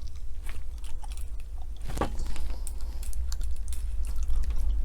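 Small irregular clicks and light crunching from a diecast model car being handled, its newly fitted wheels on their axle pins, with a sharper crackle about two seconds in, over a steady low hum.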